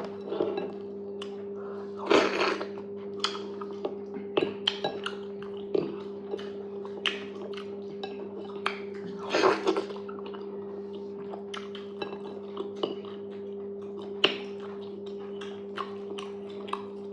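Eating sounds from a meal of fufu and okra soup: scattered clinks of a utensil or fingers against a bowl, with louder wet mouth sounds twice, about two seconds in and near the middle. A steady low hum sits beneath.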